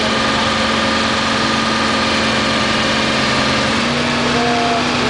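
Vehicle engine idling steadily, its pitch stepping up slightly near the end.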